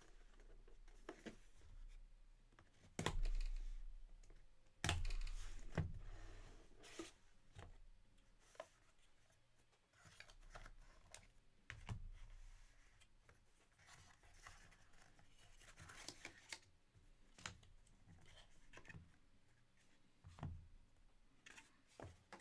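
Hands opening a sealed trading card box: tearing, cardboard scraping and rustling, and a foam insert being lifted out. Two louder, sharper handling sounds come about three and five seconds in.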